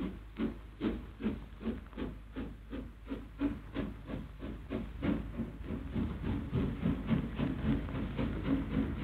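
Exhaust of an LMS Princess Royal class steam locomotive chuffing as it pulls away, with steam hissing. The beats come about two and a half a second at first and quicken until they run together after about five seconds.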